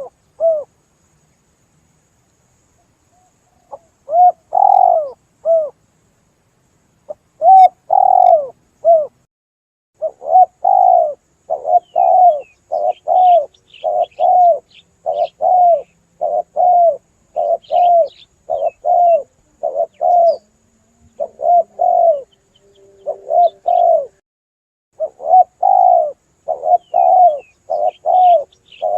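Spotted dove (tekukur) cooing: clear, loud, arched coos repeated in phrases. They stop for about three seconds near the start, then run on as a steady string of coos. Faint, higher-pitched chirps of small birds sound behind them.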